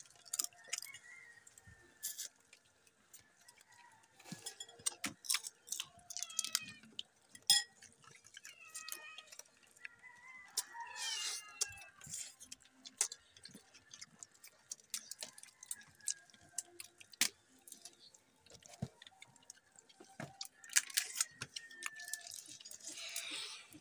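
Scattered sharp clicks and cracks of cooked crab shells being broken open by hand, with a few short bird calls in the background around the middle.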